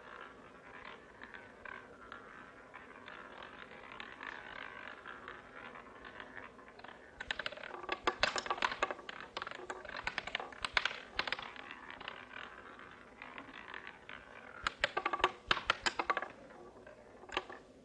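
Roulette wheel spinning with the ball running around the rim in a steady whir, then clattering across the frets and pockets in quick runs of clicks from about seven seconds in, with a second run of clicks near the end as the ball settles on the winning number.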